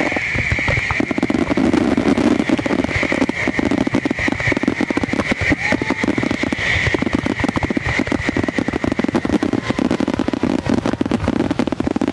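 Fireworks display: a loud, continuous rapid volley of bangs and crackles as many comets and aerial shells are fired and burst at once.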